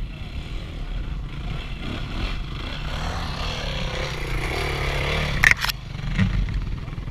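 Suzuki RM-Z450 single-cylinder four-stroke dirt bike engine running, getting louder over the first five seconds. About five and a half seconds in come two sharp cracks as branches strike the helmet, then leaves scraping across it and a thump.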